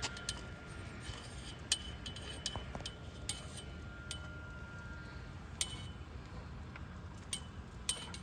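Scattered light metallic clicks and clinks, about a dozen spread irregularly, from gate-bracing hardware (turnbuckle, wire and U-clamps) being handled and set down. A steady low rumble runs underneath.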